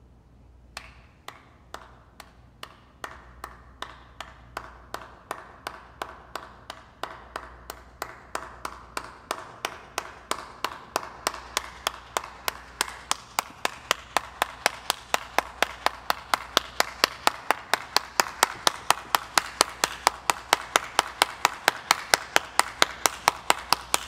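One person's slow hand clap in a reverberant hall, starting at about two claps a second and gradually speeding up to about three or four a second while growing louder, then stopping abruptly.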